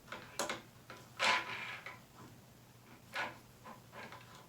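Clicks and knocks from a tennis racket stringing machine as a main string is clamped and worked, with a short sliding scrape about a second in and another click a little after three seconds.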